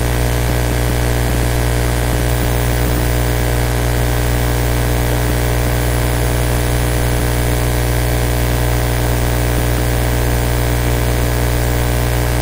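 Steady electrical buzz with hiss, a mains hum with many even overtones picked up by the screen recording's microphone. It holds at one level throughout.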